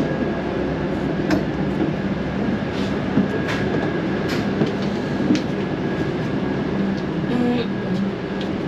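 Steady rumble and hum inside a double-decker tour bus, from its engine running and its air conditioning, with a few light clicks and knocks.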